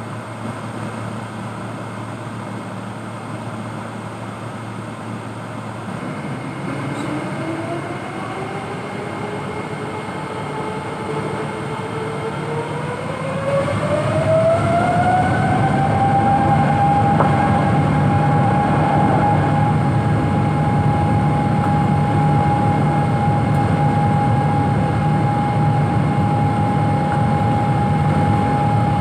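Boeing 777-200 jet engines running with a steady rush, then spooling up: a whine rises in pitch over about ten seconds and settles on a steady high note as the engines reach high power for the takeoff roll.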